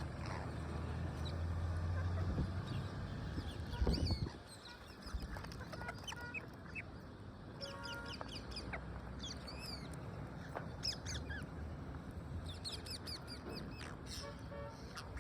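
Parrots calling with many short, sharp squawks and chirps, some in quick runs, over a low rumble that ends with a louder burst about four seconds in.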